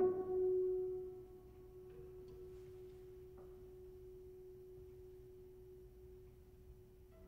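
A single mid-pitched piano note, struck just before, left to ring: loud at first, dying away within about a second and a half, then lingering faintly for several seconds.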